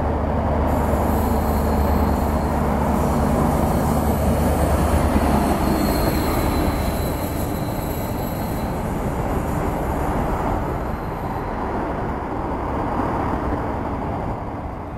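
A train passing close by. A steady low hum from the locomotive sits over the rumble of wheels on the rails, and a thin, high-pitched metallic wheel squeal runs through most of it. Everything fades slowly as the train moves away near the end.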